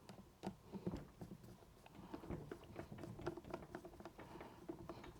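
Faint, irregular small clicks and scrapes of a hand tool tightening screws into an Uhlmann fencing reel's housing.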